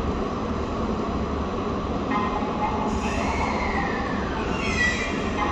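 JR East E721-series electric train starting to pull away from the platform: a steady rumble under the station roof, a sliding tone about three seconds in, and a short high whine near the end as it begins to move.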